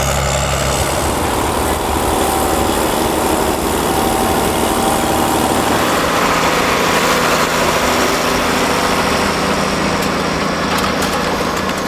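John Deere tractor engine running steadily while working in the field.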